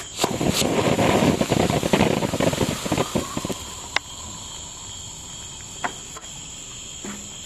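Fuse of a Neon Fountains ground firework sputtering with a loud hissing crackle for the first few seconds, then settling to a few single sharp pops over steady insect chirring.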